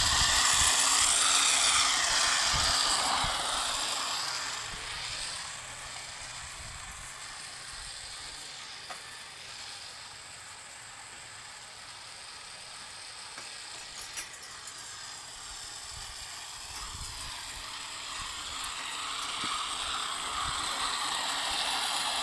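Power Wheels toy-car motor and gearbox whirring as its wheel drives a chain-link gate along. It is loud for the first few seconds, fades through the middle and grows louder again near the end.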